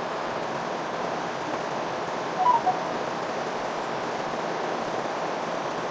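Steady rushing noise of blowing air, with a brief chirp of three short pitched blips about halfway through.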